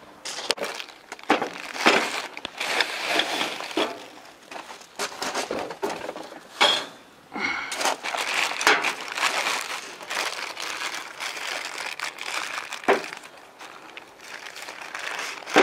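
Clear plastic parts bags crinkling and rustling as they are handled, an irregular run of crackles.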